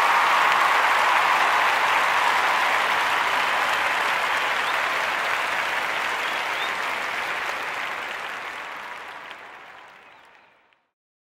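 Audience applause, steady at first, then fading out gradually over the last few seconds until it dies away into silence shortly before the end.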